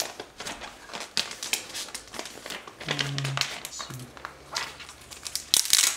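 Clear plastic protective film being peeled off the back of a tablet and crinkled in the hands: a run of quick crackles and rustles, loudest near the end.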